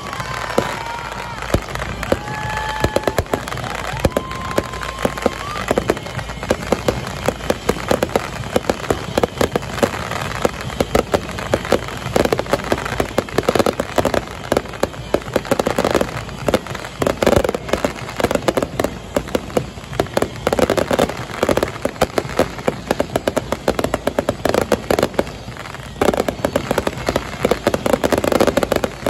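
Fireworks display: a continuous run of bangs and crackling pops from aerial shells, the popping growing denser in the second half.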